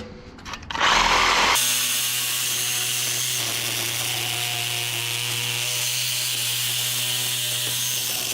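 Reciprocating saw starting about a second in and then running steadily as it cuts through an air-conditioner radiator (condenser coil), separating its copper for scrap.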